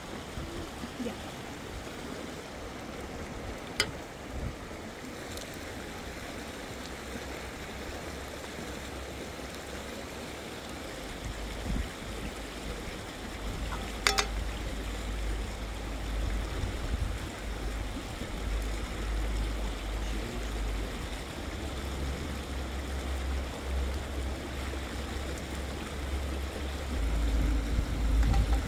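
A stream or river flowing steadily, an even rush of water, with two sharp clicks near 4 and 14 seconds in. From about eleven seconds in, a low rumble joins and grows louder.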